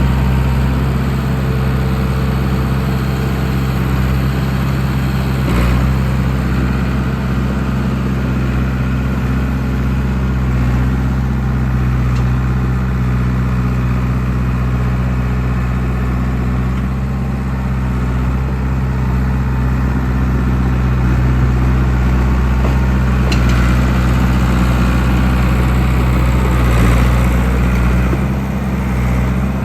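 John Deere 450B crawler dozer's diesel engine running steadily at a constant speed, with a few faint knocks.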